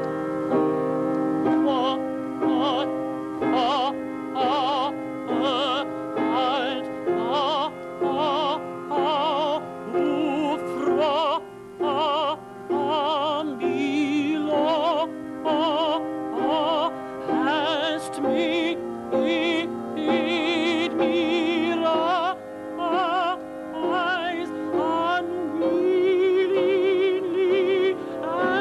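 Male opera singer singing operatically in short, dramatic phrases with a strong, wide vibrato.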